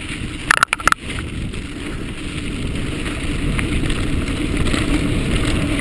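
Mountain bike riding on a sandy dirt singletrack: wind buffeting the microphone and tyres rumbling over the trail, slowly growing louder toward the end. About half a second to a second in come a few sharp clatters as the bike jolts over bumps.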